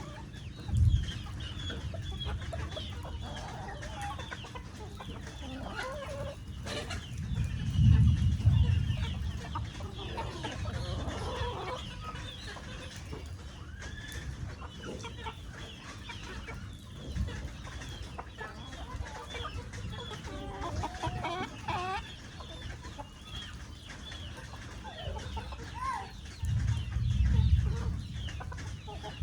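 A flock of chickens clucking and calling, many short calls overlapping throughout. A low rumble swells about a second in, again around eight seconds in and near the end.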